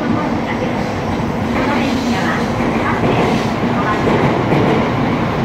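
Shinkansen bullet train running alongside the platform: a steady rushing rumble of wheels and air that grows slightly louder.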